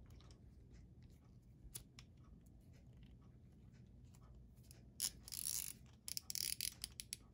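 Steel pliers gripping a threaded steel toilet flange bolt held in a socket, working it back and forth to fatigue it until it snaps off: faint metal clicks, then two short bursts of metal scraping about five and six seconds in.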